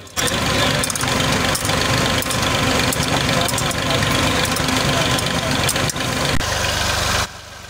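Mobile mustard oil expeller pressing mustard seed, with an engine running underneath: a loud, steady mechanical clatter full of sharp clicks. It cuts in just after the start and cuts off abruptly near the end.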